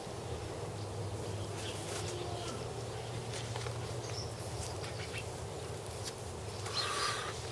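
Quiet outdoor background with a steady low hum and a few faint bird chirps, and a brief rustle near the end.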